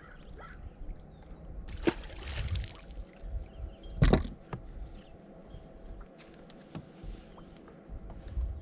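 Water and knocks on a small fishing boat: a sharp knock about two seconds in, followed by a short rush like a splash, then a louder thump about four seconds in, over a low rumble.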